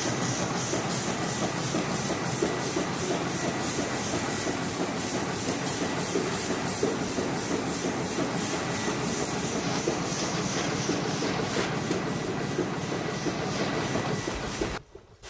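Onda 150 label die-cutting and printing machine running at speed: a steady, rapid, evenly repeating mechanical clatter with a hiss. It cuts out briefly near the end.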